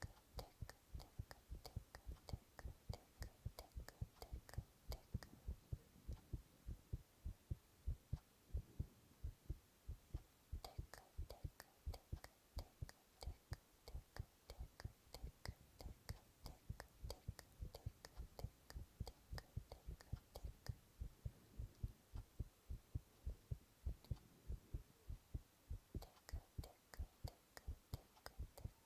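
A person's heartbeat, recorded up close: a steady, even rhythm of soft low thuds.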